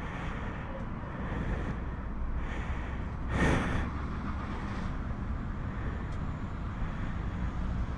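Motorcycle engine idling, a steady low rumble, with a brief rushing noise about three and a half seconds in.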